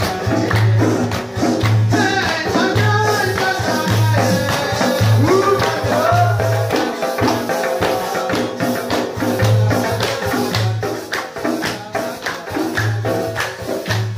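Live folk music played in a small room. A long-necked string instrument and hand drums keep a steady, driving rhythm. Through the first half a wavering melody line rises over it, likely a man singing.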